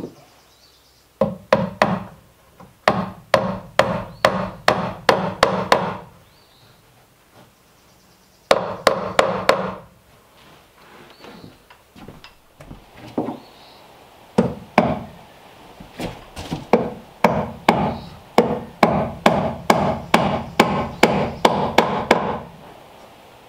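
Hammer blows on wood in three runs of rapid strikes, about two to three a second, the sound of nails being driven into the cabin's wooden wall framing.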